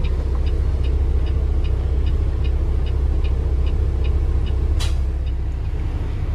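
Semi truck's diesel engine running, heard from inside the cab, with a turn signal clicking steadily about two and a half times a second. A short hiss comes about five seconds in.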